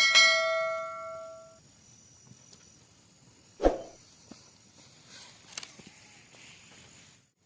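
A sudden strike that rings on in several clear tones, dying away over about a second and a half, like a struck metal object. A single dull knock comes about three and a half seconds later.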